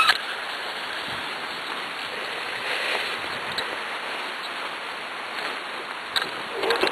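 Steady rushing and crunching of a husky-drawn cart's wheels rolling fast along a wet, puddled forest track, with a few short knocks near the end.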